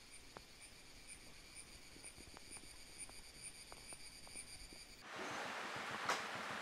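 Faint outdoor ambience with a faint, evenly repeating high chirp, about two a second, and a few tiny clicks. About five seconds in it changes abruptly to a louder, steady outdoor hiss, with one sharp click near the end.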